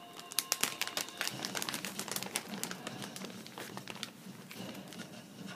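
A rapid, irregular run of sharp crackling clicks that thins out after about four seconds.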